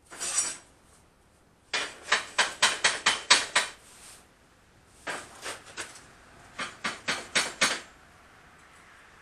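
Quick hammer taps on steel, about five strikes a second in three short runs, after a brief clatter of metal at the start.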